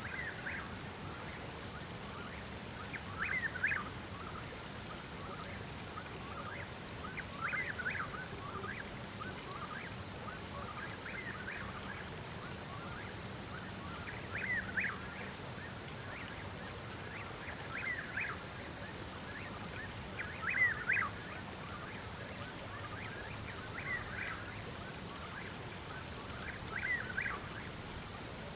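An animal call, a short rough burst of notes, repeating about every three to four seconds, over a steady background hiss and a faint high steady tone.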